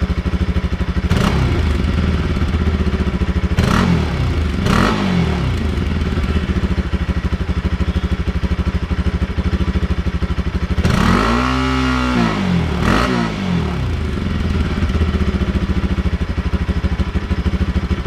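Bajaj Pulsar RS 200's single-cylinder engine idling with its exhaust end can (silencer) removed, blipped with quick throttle revs about one, three and a half and five seconds in, then a longer rev that rises and falls around eleven seconds and a short one just after. With the end can off the idle has more bass.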